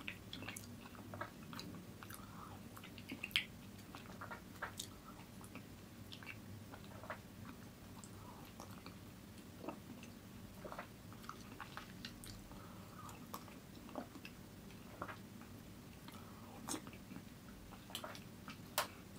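Close-miked eating: chewing and mouth clicks as a man eats spoonfuls of food, with light clicks of a plastic spoon against a plastic bowl. The small sharp clicks come irregularly throughout, with two louder ones, about three seconds in and near the end, over a faint steady low hum.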